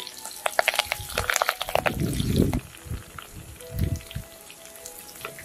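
Garlic and curry leaves crackling and spitting in hot oil in a clay pot as they are stirred with a spoon. The crackling is densest in the first two seconds, with a few duller low bumps further on.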